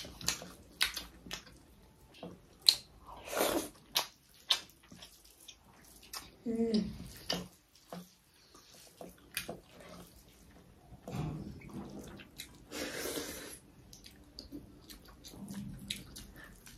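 People eating a meal: wet chewing and lip-smacking with many short sharp clicks, and a brief hum of a voice about six and a half seconds in.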